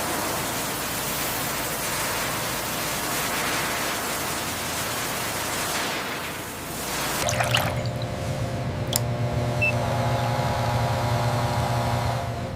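A steady rushing hiss for about seven seconds, then an abrupt change to the steady hum of factory machinery: a low drone with several steady tones above it and a few light clicks.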